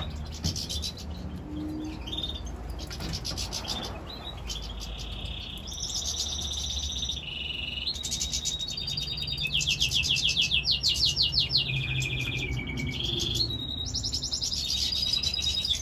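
Caged songbird singing a long, continuous song of fast trills and held runs of repeated notes, growing louder after the first few seconds.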